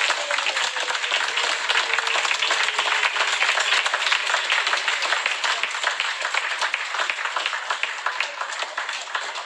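Audience applauding: many people clapping hands in a dense, steady patter that thins out and gets quieter near the end.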